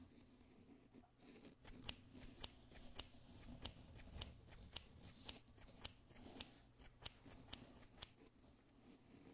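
Scissors snipping through a sponge cloth: a run of about a dozen sharp, evenly spaced snips, about two a second. The snips start about two seconds in and stop shortly before the end.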